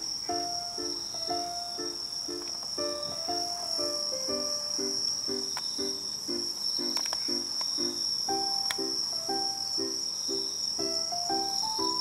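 Light background music with a steady plucked-chord rhythm and a simple melody, over a continuous high-pitched chirring of crickets. A few faint clicks come in about halfway through.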